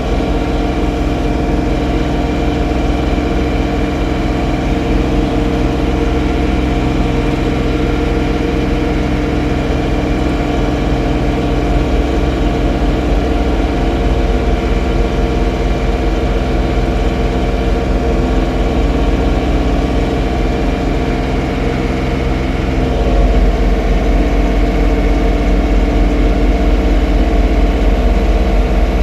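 John Deere 3046R compact tractor's three-cylinder diesel engine running steadily. It grows louder and deeper about 23 seconds in.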